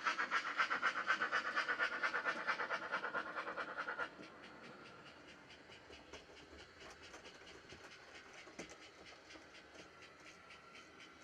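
Sound decoder in an OO gauge model of a Mogul steam locomotive playing a fast, even beat of exhaust chuffs through the model's small speaker. About four seconds in the chuffing drops abruptly to a much quieter beat that carries on.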